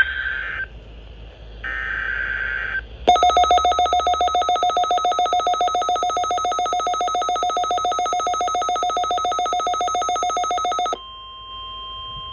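Emergency Alert System signalling over NOAA Weather Radio: two short, buzzy data bursts, then a loud trilling electronic alert tone pulsing rapidly for about eight seconds. It cuts off into a steady single-pitch warning-alarm tone near the end.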